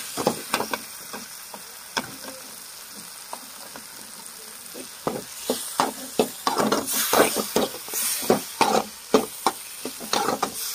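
Metal spatula stirring and scraping liver and gongura fry around a metal pan over the heat, mixing in masala powder, with a light sizzle underneath. After a lull of about three seconds near the start, the strokes come quick and dense from about five seconds in.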